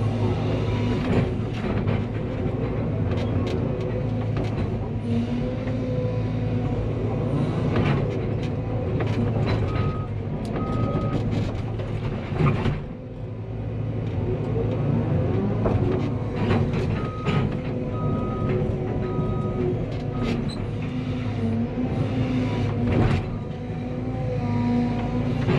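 Cat 320 excavator's diesel engine running steadily under working load, with many scattered knocks and clanks. Short electronic beeps sound twice about ten seconds in and four more times a little later.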